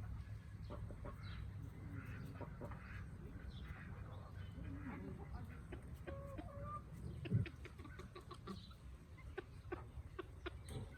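Backyard chicken flock clucking softly at intervals, with scattered small taps and one louder thump about seven seconds in, over a low steady rumble.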